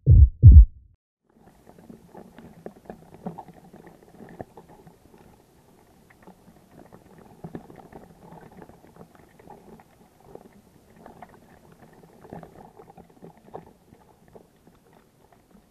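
A low double thump, like a heartbeat, at the very start; then faint, irregular bubbling and crackling water noise as picked up underwater.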